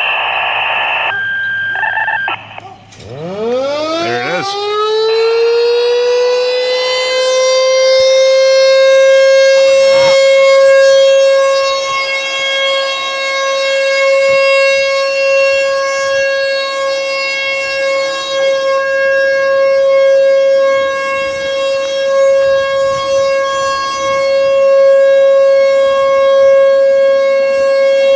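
A short burst of stepped radio activation tones from a handheld two-way radio, then an outdoor emergency warning siren winds up from a low growl into a rising glide and settles about six seconds in on one loud, steady tone that holds to the end.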